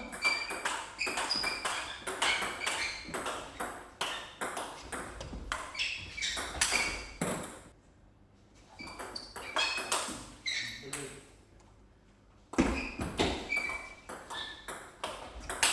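Table tennis rallies: a celluloid ball clicking off rackets and the table in quick succession, stopping for a few seconds about halfway through and again shortly before a final burst of hits.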